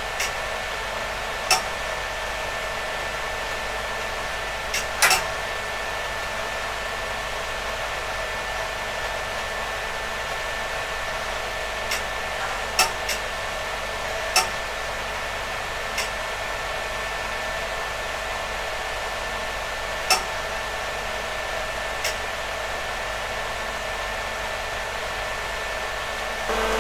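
Cooling fans of a DEC PDP-11/34A minicomputer running at reduced speed, a steady, very noisy whir with a faint hum, broken now and then by short sharp clicks.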